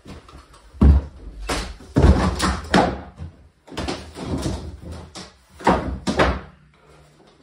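An exterior cabin door pushed shut with a heavy thud about a second in, followed by several bouts of knocking and clattering as loose flooring planks are handled and laid down on the bare floor.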